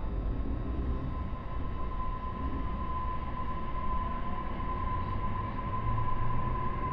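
JR E531-series electric train running between stations, heard from inside the car: a steady low rumble of wheels on rail with a steady high-pitched whine that grows louder about a second in.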